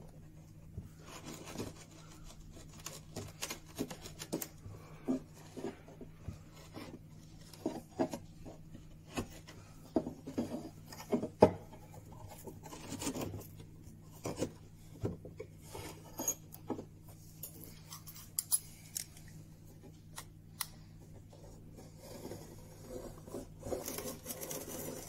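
Steel chisel scraping and paring along a groove in a wooden camera panel, an irregular run of short scrapes and ticks, clearing leftover fibres of a torn-off ribbon light seal out of the channel.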